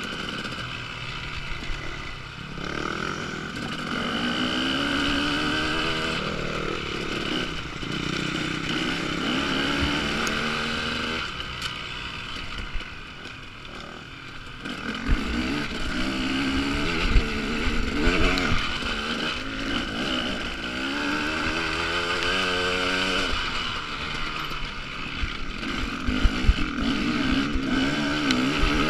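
Enduro dirt bike engine being ridden hard on a rough trail, its pitch rising and falling repeatedly with the throttle and gear changes, with wind buffeting and knocks from the bumpy ground, heaviest in the second half.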